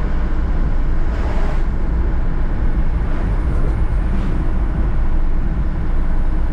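Steady low rumble of engine and road noise from inside the cab of a moving goods truck.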